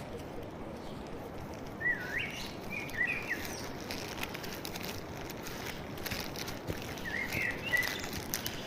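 A bird singing short warbling phrases, once about two seconds in and again about seven seconds in, over a steady background hiss.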